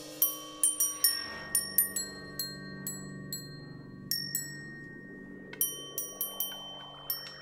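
Percussion music: small metal bells struck in quick, scattered notes, each ringing on, over a low sustained hum. The strikes thin out in the middle and come thick again in the second half.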